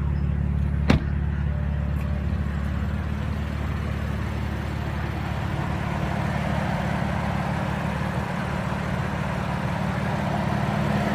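2016 BMW M3's 3.0-litre twin-turbo inline six idling steadily. There is a single sharp click about a second in.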